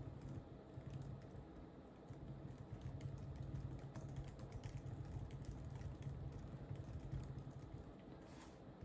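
Typing on a mechanical keyboard: a continuous run of quick key clicks, over a steady low hum.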